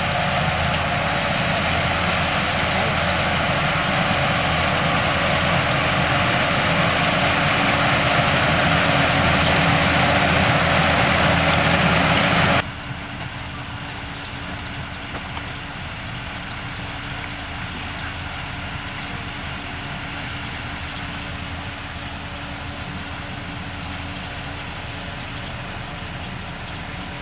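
Diesel engines of heavy earthmoving machinery running steadily and loudly, growing a little louder; about halfway through the sound drops suddenly to a quieter, duller engine drone.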